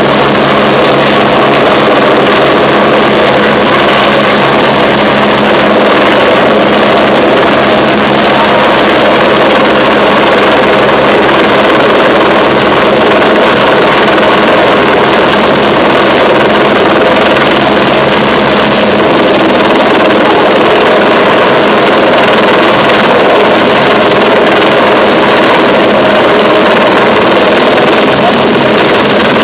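Helicopter hovering low overhead with an underslung load: loud, steady rotor and engine noise that does not let up.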